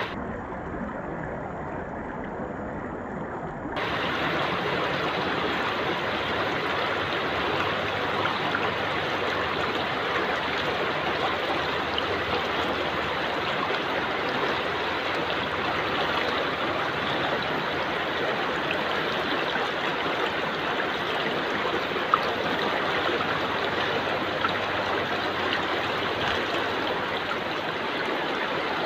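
Small stream flowing, a steady rush of water. It sounds muffled for about the first four seconds, then opens out.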